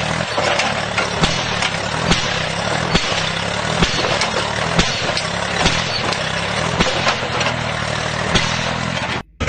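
Farm tractor's engine running hard under heavy load, with the rear wheels churning in the dirt, and a sharp click about once a second. It cuts off abruptly near the end.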